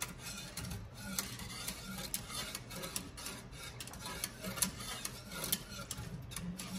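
Wire whisk stirring cooking pudding in a large metal pot, scraping the bottom and clicking against the sides in a quick, irregular rhythm. The stirring is kept up without pause so the pudding does not burn.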